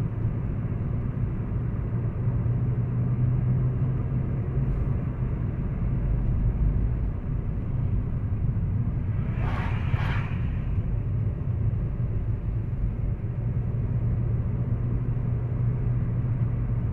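Steady road and engine rumble heard inside a moving car's cabin, with a strong low hum. About ten seconds in, a short two-part higher-pitched sound stands out briefly.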